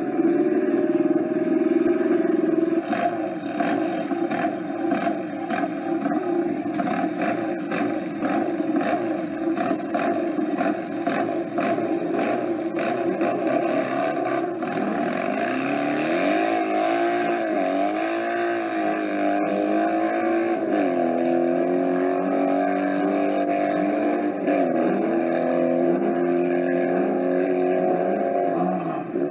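Sprint motorcycle engines: one runs hard with its pitch climbing slowly, then from about halfway an engine is revved up and down over and over in throttle blips.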